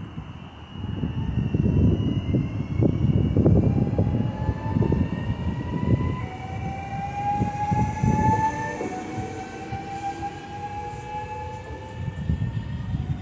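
NS VIRM double-decker electric train, unit 9506, moving past and pulling away: a heavy rumble of wheels on rail with many short knocks, under a whine from the traction drive that climbs slowly in pitch as the train gathers speed.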